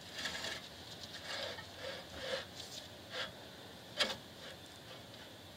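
Faint rubbing and handling noises as gloved hands turn and seat a brake rotor on the rear hub, with one sharp click about four seconds in.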